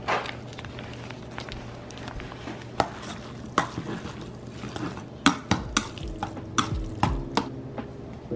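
Utensils clinking and scraping against a stainless steel bowl while noodles are stirred together with black bean sauce, the clicks coming thicker in the second half.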